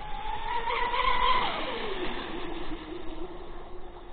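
Twin electric motors of a Minicat 820 EP RC catamaran whining at speed. The pitch climbs a little, then drops steeply about a second and a half in and settles into a lower, steady whine.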